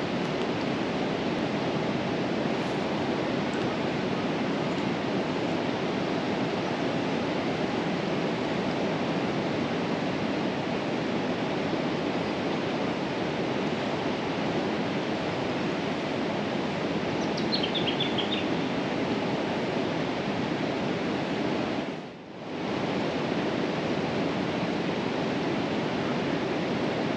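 River water rushing steadily, the river running high after heavy rain. A few faint bird chirps come about two-thirds of the way through, and the rushing drops out for a moment near the end.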